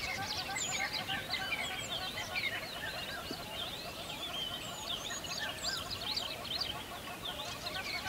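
A dense chorus of many birds chirping at once, short overlapping calls and quick rising and falling whistles running on without a break.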